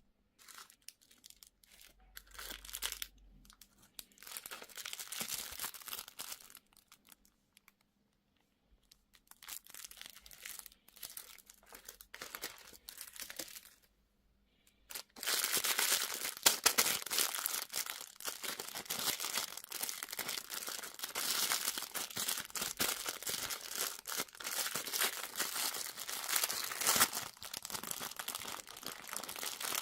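Candy and toy packaging being crinkled and torn open by hand. It comes in separate spells of crackling for the first half, then crinkles without a break from about halfway on.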